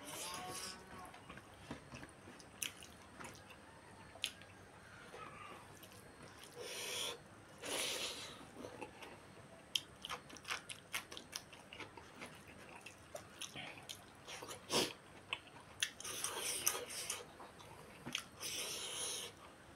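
Close-up mouth sounds of a person eating rice and chicken by hand: chewing and lip smacking with many small clicks and crunches, and a few louder noisy bursts scattered through.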